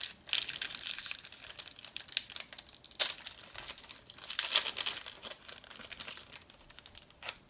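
Crinkling and tearing of a 2013-14 Panini Prestige basketball trading-card pack wrapper being ripped open, in irregular crackles with louder bursts near the start, about three seconds in and about four and a half seconds in.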